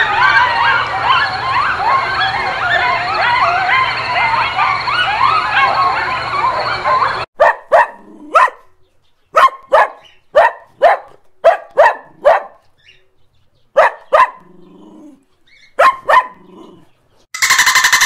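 Coyotes yipping and howling in chorus, many short rising-and-falling calls overlapping. This cuts off suddenly to a dog barking repeatedly, single and paired barks with short pauses between. Near the end comes a dolphin's rapid click train.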